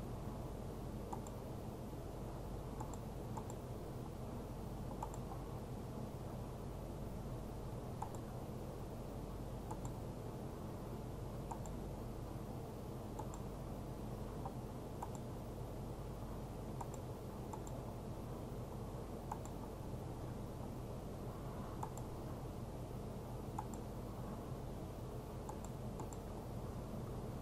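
Faint computer mouse clicks every second or two at an uneven pace, over a steady low hum of room and equipment noise.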